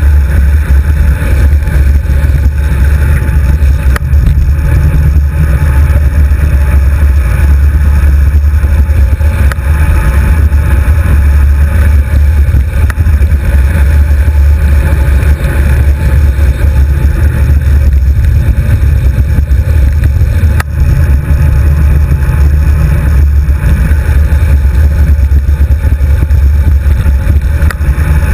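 Wind buffeting a GoPro HD2's microphone on a moving road bicycle: a loud, steady low rumble.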